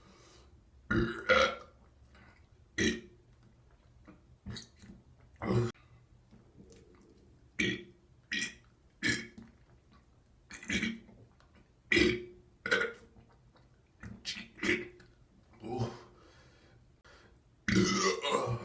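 A run of male burps, about fifteen short ones a second or so apart, then a longer drawn-out burp near the end.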